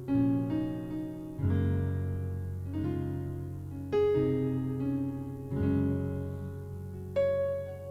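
Keyboard playing slow piano chords, a new chord struck about every second and a half and left to ring and fade, with a single high note held near the end.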